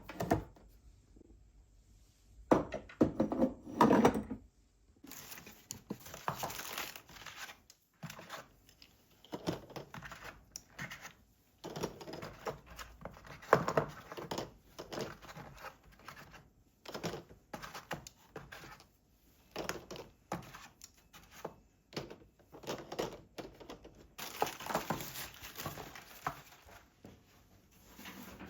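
Household objects being handled in a small room: a run of irregular knocks and thunks mixed with rustling and crinkling, with a few sharper knocks near the start.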